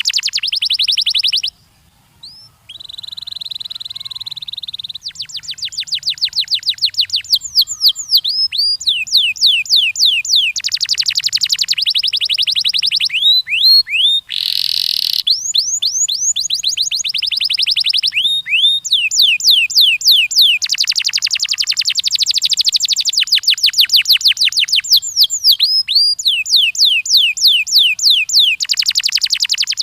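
Domestic canary singing a long song of rapid trills: runs of quick repeated notes at changing speeds. There is a short pause near the start and a brief harsh buzzy note about halfway through.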